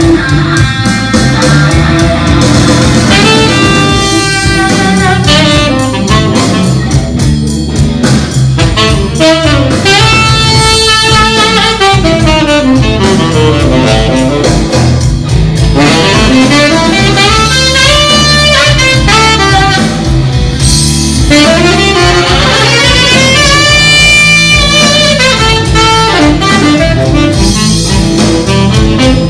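Live band playing an instrumental passage: a saxophone plays a melodic solo line over electric guitar accompaniment.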